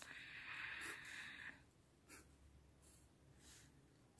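Faint scratching of a pen on paper while drawing lines: a soft hiss for about the first second and a half, then a few short faint strokes.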